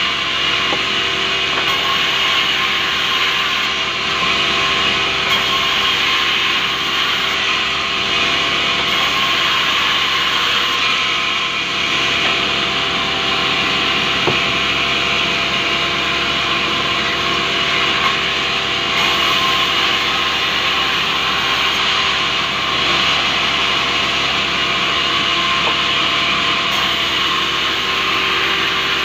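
Sawmill band saw running steadily and cutting through rubberwood, a continuous noise with a few held tones underneath and no break.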